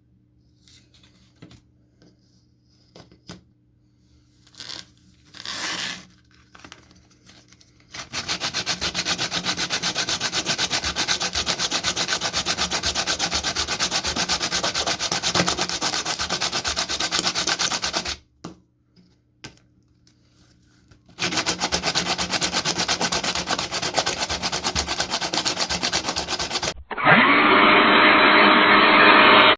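Abrasive sanding of a rusty knife blade: a dense, rapid scraping that starts about eight seconds in, stops for a few seconds, then resumes. Near the end a louder, muffled humming sound with steady tones takes over.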